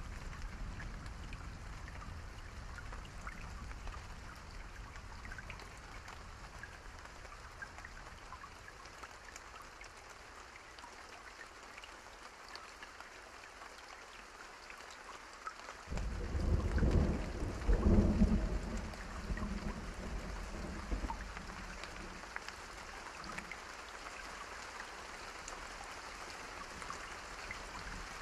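Steady rain falling, with fine drop ticks. A little past halfway a thunderclap breaks in suddenly as a loud, deep rumble, peaks a couple of seconds later and dies away over a few seconds.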